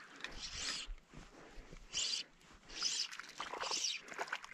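A small hooked brook trout splashing at the water's surface as it is brought to shore, in several short bursts with light ticking between.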